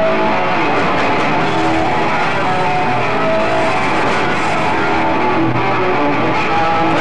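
Hard rock band playing live, loud and steady, with electric guitars to the fore.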